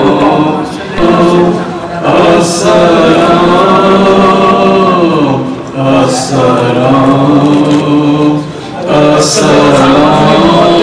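Melodic chanted singing: a voice holding long notes that glide slowly in pitch, in phrases broken by short pauses.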